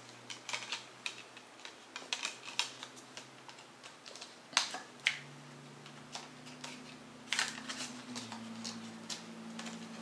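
Plastic CD jewel case and its packaging being handled: irregular small clicks and crackles, with a few sharper snaps about halfway through and another a little later, over a faint steady low hum.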